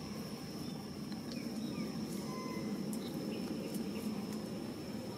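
Outdoor ambience: a steady high-pitched drone over a low, even rumble, with a few faint scattered clicks and chirps.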